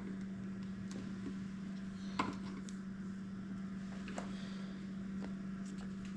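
Faint clicks and light taps of a motorcycle speedometer cable being fed and routed by hand, with one sharper click about two seconds in, over a steady low hum.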